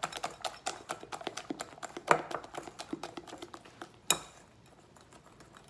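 A hand utensil beating a runny egg, butter and corn-syrup pie filling in a glass bowl: rapid clicking against the glass, several a second, with a couple of louder knocks. It stops about four seconds in.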